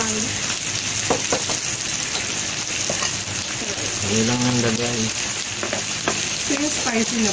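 Pork slices and hot dogs sizzling steadily on an electric grill plate, with a few light clicks of metal tongs and utensils about a second in.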